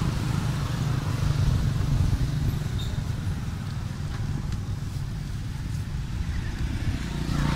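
Motorbikes and scooters passing on the road, a steady low engine rumble.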